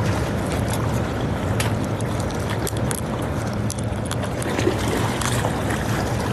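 Strong sea wind buffeting the microphone over the noise of surf, with scattered sharp clicks.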